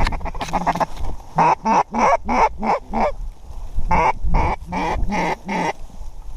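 Duck quacking in two runs: about six quacks, a short pause, then about five more.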